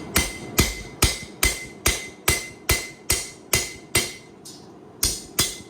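Blacksmith's hand hammer forging hot high-carbon steel on an anvil: a steady run of about a dozen sharp blows, a little over two a second, each with a brief metallic ring. The blows pause briefly near the end, then two more follow.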